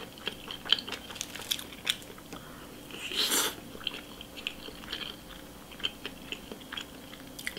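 Close-miked chewing of food: irregular wet mouth clicks and smacks, with one louder, longer noisy burst about three seconds in.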